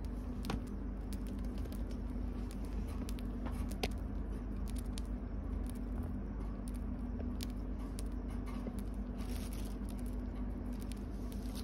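Budgerigar eating foxtail millet seeds, cracking and husking them with its beak: scattered small, irregular clicks and crackles over a steady low hum.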